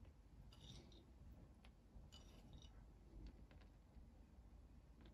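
Near silence, broken by a few faint, scattered light clicks: sliced almonds being picked off a small ceramic plate by hand and dropped onto the dough.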